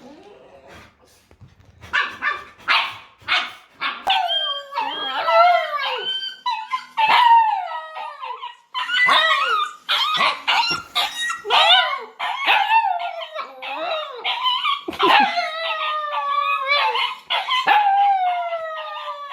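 Dog barking about three times, then howling and whining in long cries that fall in pitch, one after another and sometimes overlapping.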